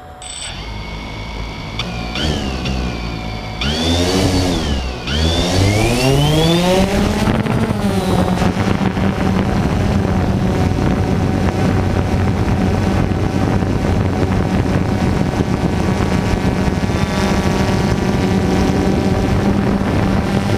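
Quadcopter drone's electric motors and propellers spinning up in a series of rising whines, dipping once and climbing again as it lifts off. It then settles into a steady propeller buzz in flight.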